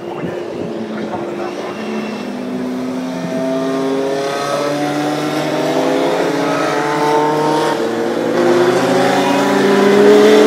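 Several historic 1970s–1985 Formula One cars racing on a wet track, their engine notes overlapping and rising in pitch as they accelerate toward and past the listener. The sound grows steadily louder and is loudest near the end.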